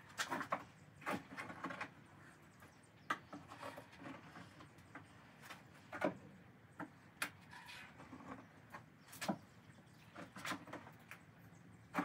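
Funnel being shaken and jiggled in the transom's fill opening to work poured transom compound down into the cavity, giving irregular knocks and clatters in short clusters.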